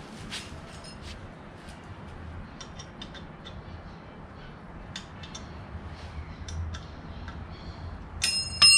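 Hand work on motorcycle crash-bar bolts with an Allen key and metal parts: scattered small metallic clicks and ticks. Near the end comes a loud metallic clink that rings briefly.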